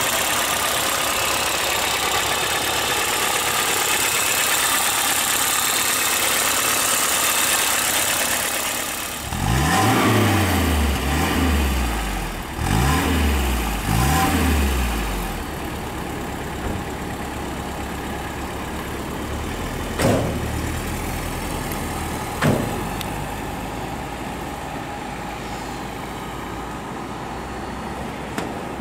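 1986 Alfa Romeo Spider's 2.0-litre four-cylinder engine running steadily, then revved four times in quick succession about ten seconds in. It then settles to a lower steady run, with two brief sharp sounds about halfway through, and grows fainter near the end.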